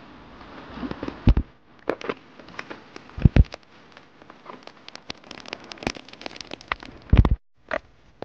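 Rain falling on a kayak and its spray skirt: a dense patter of sharp drop ticks over a faint hiss, broken three times by a heavy low thump.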